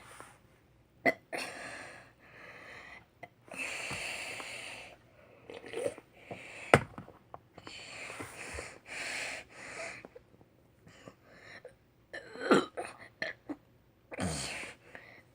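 A boy's breathy gasps and wheezes, broken by several short burps from drinking root beer, with a sharp click about seven seconds in.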